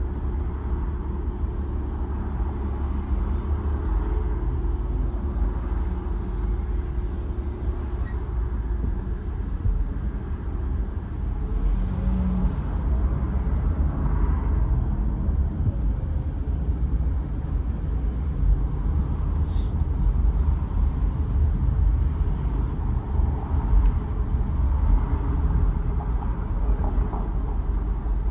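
A car driving through city traffic, heard from inside the cabin: a steady low rumble of engine and road noise. One faint click about two-thirds of the way through.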